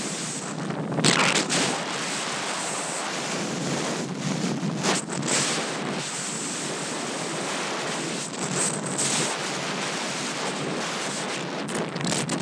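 Wind rushing hard over a jumper-mounted camera's microphone under a spinning, line-twisted parachute canopy, surging louder several times.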